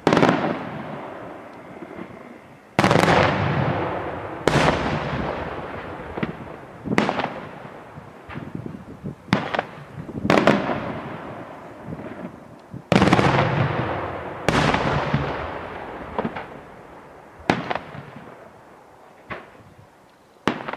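Daytime fireworks: aerial shells bursting with sudden loud bangs at irregular intervals of one to three seconds, each trailing off over a second or more, with smaller reports between the big ones.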